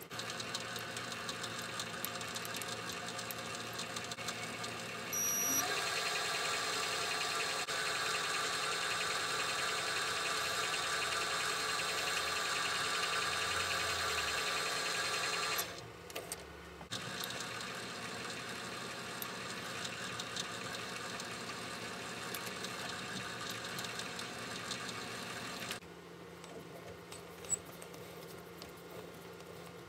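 Small metal lathe running with a steady motor hum while a tailstock-held drill bores into spinning brass hex stock. The sound shifts abruptly twice, past halfway and near the end, and the last few seconds are quieter with a few sharp clicks.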